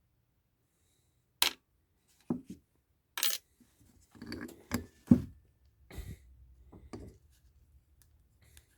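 Small metal carburetor parts being handled and set down on a workbench: a string of about eight separate clinks and knocks, the loudest a little past five seconds in.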